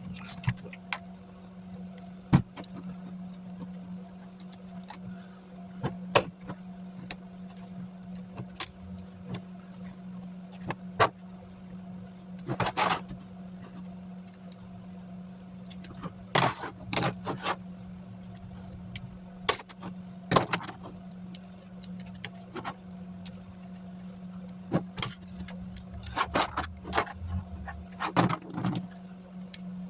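Scattered sharp clicks and taps of small laptop parts being handled and worked on, irregular and in little clusters, over a steady low hum.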